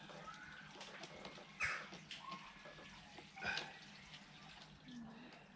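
Hand-tool work on a quad bike's handlebar throttle assembly: two short scraping clicks about two seconds apart, with faint background between them.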